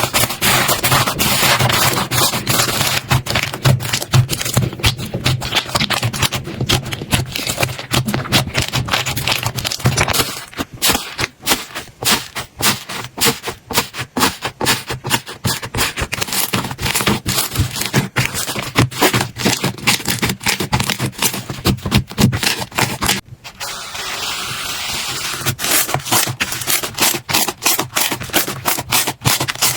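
Slime being squeezed and pressed by hand, giving dense, rapid crackling and popping clicks. Partway through, the clicking gives way to a steadier hiss for a couple of seconds, then resumes.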